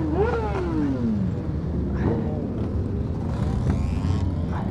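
Motorcycle engines running with steady low noise. In the first second one engine note rises briefly and then falls away in pitch.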